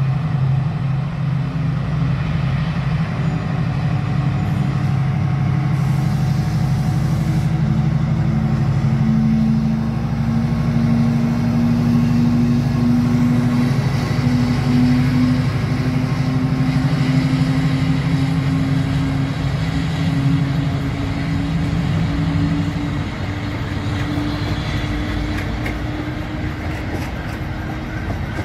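Freightliner Class 70 diesel locomotive passing close under power with a train of flat wagons, its engine running loud with a deep steady note and a separate tone that slowly climbs in pitch. About 23 s in, the engine note drops away as the locomotive moves off, leaving a quieter rumble.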